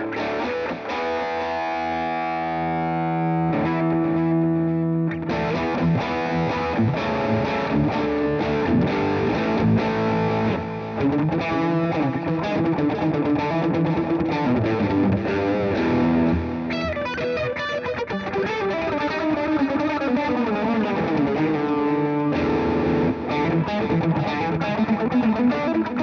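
Electric guitar played through a Marshall Jackhammer JH-1 distortion pedal, switched on. Distorted chords are held and let ring for the first few seconds, then give way to faster riffing and single-note runs.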